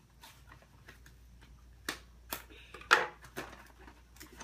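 Cardboard toy packaging being pulled and torn away by hand: a few sharp crackling snaps, the loudest about three seconds in.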